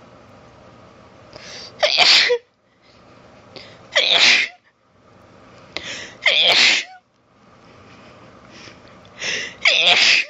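A woman sneezing four times in a rapid allergy sneezing fit, about two seconds apart, each strong sneeze preceded by a shorter build-up breath.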